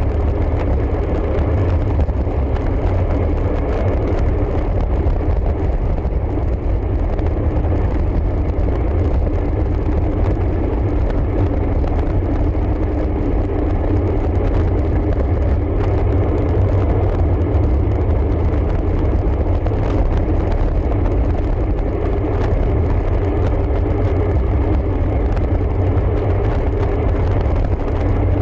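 Steady, loud low rumble of wind buffeting the microphone of a camera riding on a moving road bike.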